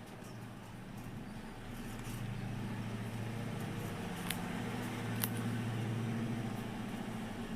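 Guinea pig crunching a carrot, a few sharp crunches over a steady low hum that swells and fades back.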